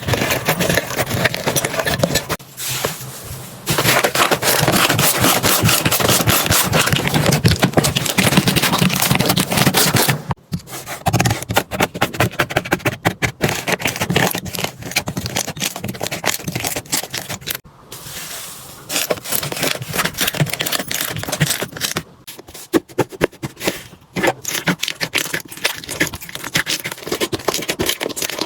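Slime being worked close to the microphone, a dense run of crackling, popping and squelching. It comes in several stretches split by brief pauses.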